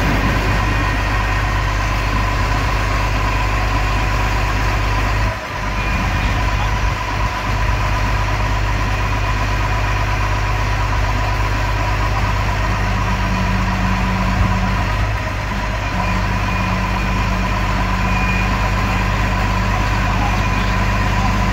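Kenworth T360 tow truck's diesel engine running steadily while it drives the winch pulling a wrecked truck up the tilt tray, with a steady whine above the engine note. The sound dips briefly about five seconds in.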